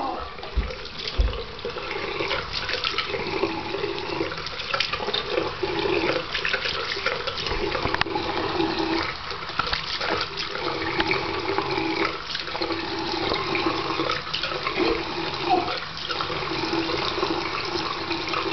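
Tap water running steadily into a bathroom sink, splashing irregularly as hands rinse a newborn's hair.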